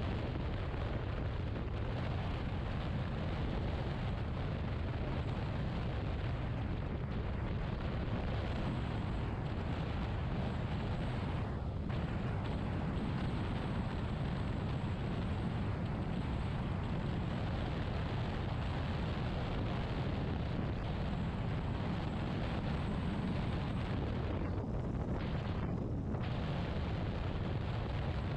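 Steady wind rumble on the microphone of a scooter riding at highway speed, with engine and tyre noise running underneath.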